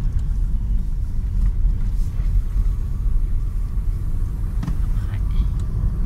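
Steady low rumble of a car driving along a road, heard from inside the cabin: engine and road noise.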